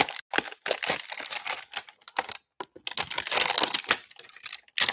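Plastic wrap on a trading card hanger box crinkling and crackling as hands grip and turn it, a rapid, uneven run of small clicks and crackles.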